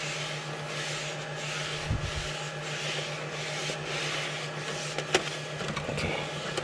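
Hand rubbing over newly applied build tape on a 3D printer's build plate: repeated swishing strokes, a little more than one a second, to press the tape down without bubbles. A dull thump about two seconds in and a sharp click about five seconds in.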